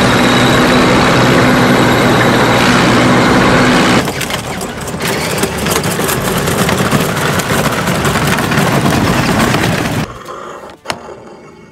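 Heavy tank engine sound effect running steadily with a held low hum for about four seconds, then turning into a rougher, crackling rumble that cuts off suddenly about ten seconds in.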